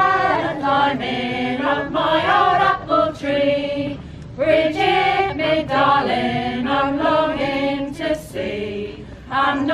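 A folk choir of men's and women's voices singing unaccompanied, in phrases of held notes with short breaths between lines.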